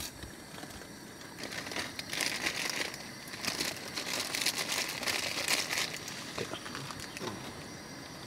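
Plastic Maggi noodle packaging crinkling in irregular bursts as it is torn open and handled. The crinkling is busiest from about a second and a half in to about six seconds, then thins out.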